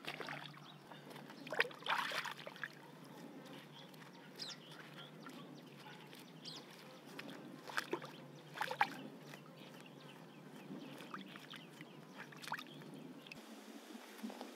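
Shallow river water splashing and sloshing in irregular bursts as a whole duck carcass is rinsed by hand at the water's edge, loudest about two seconds in and again around eight to nine seconds.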